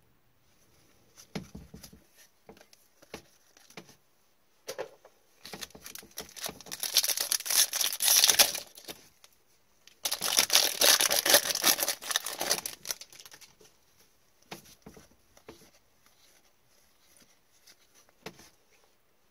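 Foil trading-card pack wrappers being torn open and crinkling, in two loud spells a few seconds apart. Between and after them come light rustles and clicks of cards being handled.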